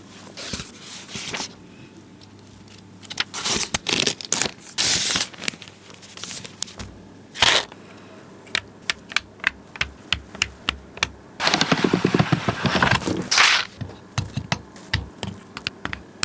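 Keyboard being assembled: a run of sharp plastic clicks as Gateron Yellow switches and PBT keycaps are pressed into a Keychron Q4, with a few longer scraping, rustling stretches in between.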